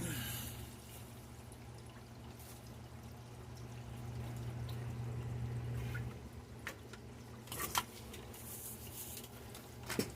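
Water pouring and dripping out of an old, removed sump pump into a floor drain, with a couple of sharp knocks near the end. A low steady hum runs underneath and cuts off suddenly about six seconds in.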